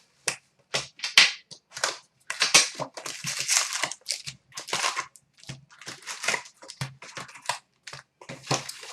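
Plastic wrapping and packs of a box of hockey trading cards being ripped and crinkled open: a rapid, irregular run of tearing and crackling bursts.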